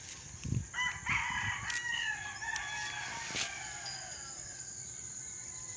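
A rooster crowing once, one long crow starting about a second in and lasting about three seconds, its pitch slowly falling toward the end. Two dull thumps come just before it.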